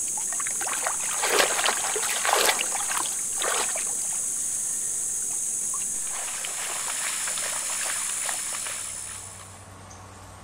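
Irregular splashing and sloshing of wading through shallow floodwater, over a steady high-pitched hum; the sound drops away abruptly near the end.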